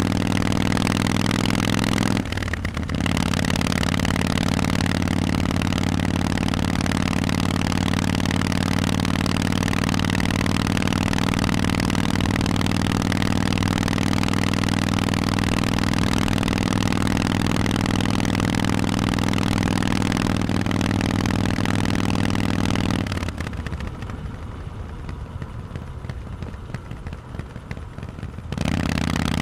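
Harley-Davidson Forty-Eight's 1200 cc V-twin running loud through Vance & Hines exhausts at a steady engine speed. The engine note drops away briefly about two seconds in, then again near the end for about five seconds, much quieter, before coming back in full.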